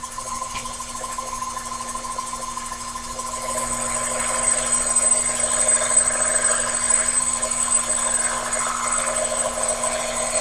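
Sherline mini lathe running with a steady motor hum. About three and a half seconds in, a high-speed steel tool begins a cut in aluminum turned between centers, adding a louder hiss and a thin high whine.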